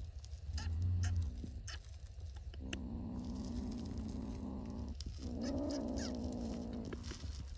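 Cat meowing in two long, drawn-out calls, the second rising and then falling in pitch, with a few short clicks in between.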